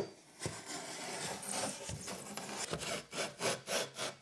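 A blade cut through a foil-faced PIR foam insulation board along a fold, starting with a sharp crack, then a long continuous scraping rasp through the foam and foil, then a few short strokes a second near the end.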